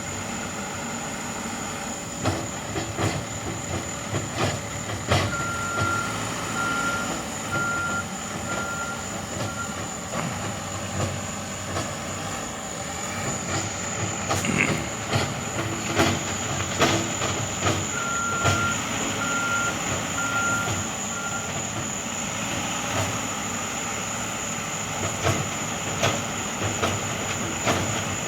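Backup alarm of a truck or construction machine beeping in two runs of several evenly spaced beeps, over steady working machinery noise with frequent clanks and knocks. A high, steady whine sits over it all.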